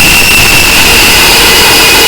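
Harsh noise music: a dense, unchanging wall of distorted static at near full volume, with a shrill ringing band held steady high above it.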